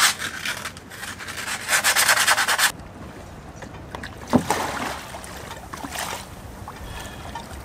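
Fine sandpaper rubbing on a sacrificial zinc anode in quick back-and-forth strokes, cleaning off oxidisation, cutting off abruptly about two and a half seconds in. A splash follows about four seconds in as a person slides off a boat's stern into the sea, then lighter water sounds.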